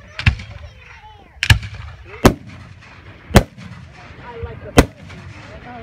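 Aerial fireworks bursting overhead: five sharp bangs about a second apart, over a low rumble.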